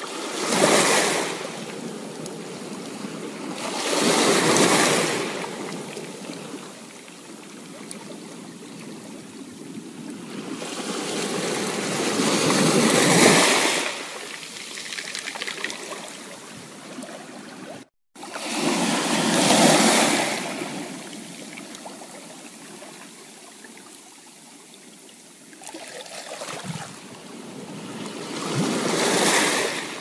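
Ocean surf breaking and washing up a sandy beach, a hiss that swells and fades about five times. The sound cuts out for an instant a little past halfway.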